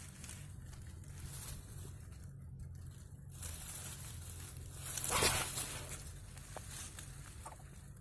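Ferns and dry grass rustling and crackling as they are pushed aside, with a louder rush of noise about five seconds in.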